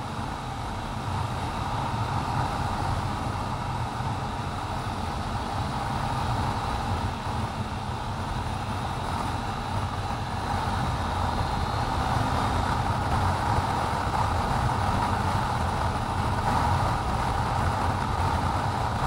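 Honda sport motorcycle riding along a road at steady speed: a steady mix of engine and wind noise picked up by the action camera's own microphone, getting slightly louder toward the end.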